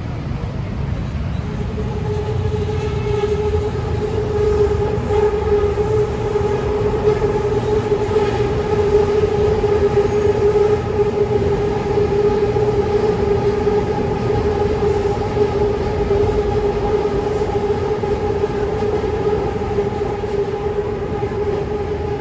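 A BTS Skytrain train on the elevated track overhead makes a steady humming tone that sets in about two seconds in, over a low rumble.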